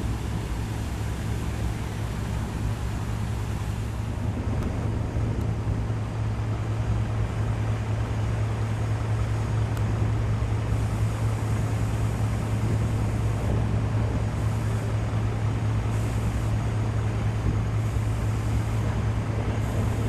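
Boat engine running steadily with a constant low drone.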